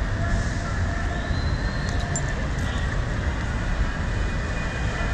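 Steady city street noise: a low, even rumble of traffic with faint scattered higher sounds over it.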